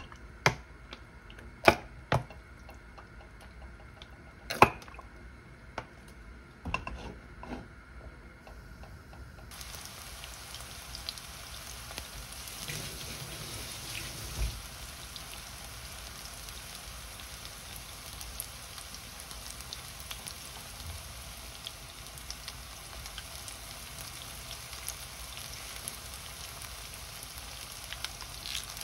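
Several sharp clicks and knocks, then, about ten seconds in, the steady sizzle of sliced green onions frying in oil in a nonstick pan, with small crackles through it. This is scallion oil being made.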